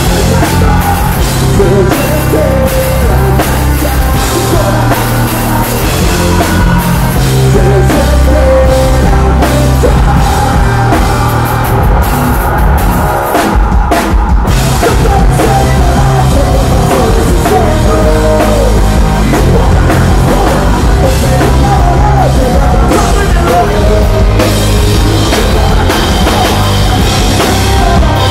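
A rock band playing live at full volume: a drum kit driving a steady beat under electric guitars and bass, with a brief break in the music about halfway through.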